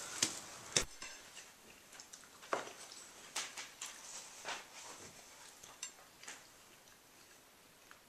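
Faint, scattered clinks and taps of tableware and wine bottles being handled on a dinner table, roughly one a second, after a sharper click near the start.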